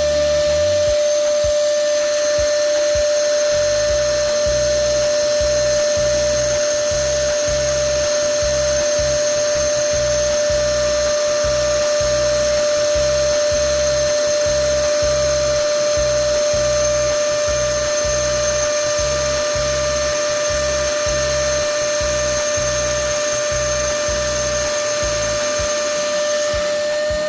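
A small electric power tool's motor running at a steady speed, giving an even high-pitched whine that holds its pitch throughout.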